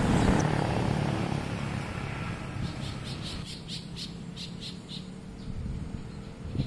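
A small bird chirping: a quick run of about ten short high chirps about three seconds in, over a low steady rumble that slowly fades.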